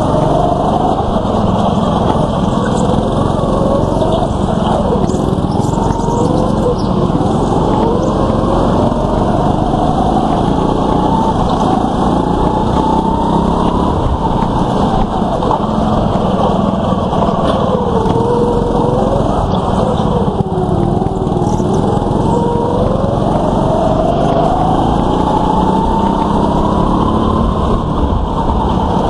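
Go-kart engines running hard on a kart track, the revs rising and falling repeatedly as the karts speed up and slow for the bends.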